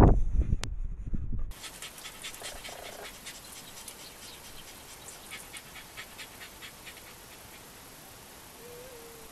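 Wind buffeting a trail camera's microphone for about a second and a half, then a hard cut to a faint, hissy dusk recording with fine ticking and a couple of short, faint hoots from a Eurasian eagle-owl, one near the end.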